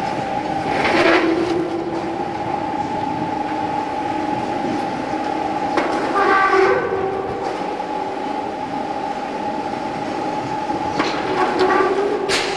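Machinery running with a steady whine, and a short squeal three times, about every five and a half seconds.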